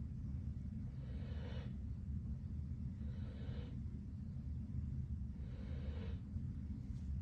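An animal snoring in its sleep: three snores in a slow, even rhythm, one about every two to two and a half seconds, over a steady low hum.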